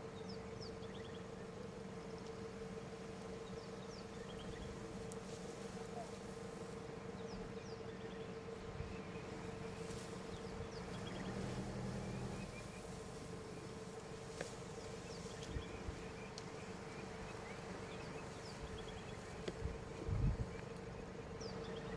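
Steady buzzing drone of insects, with small birds chirping now and then. A few low thumps come near the end.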